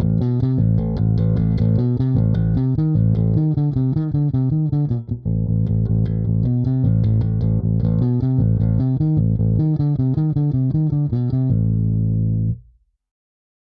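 Electric bass guitar played through a Zoom B1FOUR multi-effects pedal on its 'Ampeg half stack' amp-simulation preset: a rhythmic line of separate notes, which stops about a second before the end and the last note dies away.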